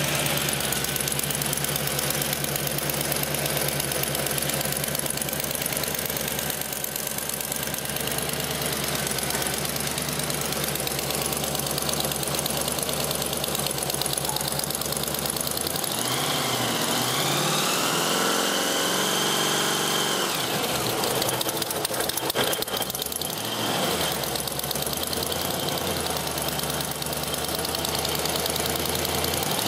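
Supercharged 357 cubic inch small block Chevy V8, topped by a 6-71 blower and two Holley carburettors, idling steadily. It is revved up and back down in the second half.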